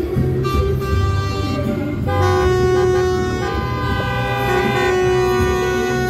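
Vehicle horns giving long, held multi-tone blasts, a louder chord starting about two seconds in, over the low rumble of passing engines.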